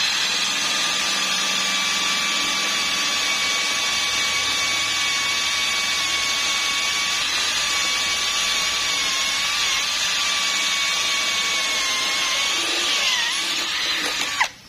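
DeWalt-branded cordless brushless drill running steadily with a high motor whine, its 6 mm bit drilling through steel angle iron. The pitch wavers and dips slightly near the end, then the drill stops suddenly.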